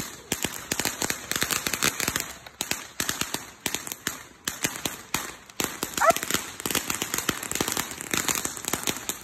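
Ground fountain firework crackling with rapid, irregular pops, several a second. About six seconds in, the puppy gives one short whine.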